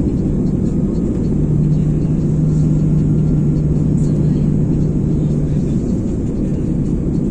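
Cabin noise of an Airbus A330 airliner descending on approach, heard beside the wing-mounted engine: a loud, steady low rumble of engine and airflow. Over it runs a steady hum that breaks off about a second in and fades out near the end.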